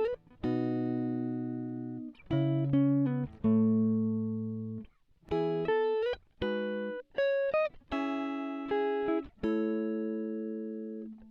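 Background music: a clean guitar playing slow chords, each one struck, left to ring and fade, with short pauses in between.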